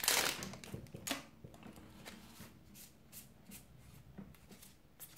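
Foil booster-pack wrapper crinkling in the hands for about the first second, then faint ticks and slides of trading cards being fanned and leafed through.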